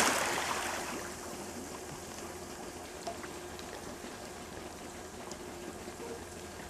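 The tail of a big splash from a person plunging into water fades over about the first second. Then the water laps and trickles quietly, with a few faint drips, as he swims under the surface.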